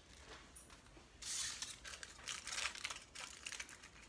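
Aluminium foil crinkling as it is handled: quiet at first, then a dense burst of crackling a little after a second in, followed by bouts of sharp crackles.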